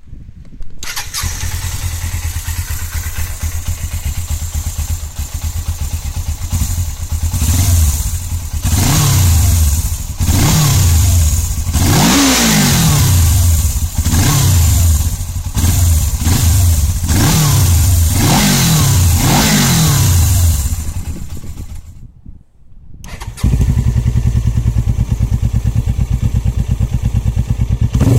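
Suzuki GS500 parallel-twin motorcycle engine idling, then revved repeatedly, about eight quick blips that rise and fall. After a brief break it idles again, steady and louder.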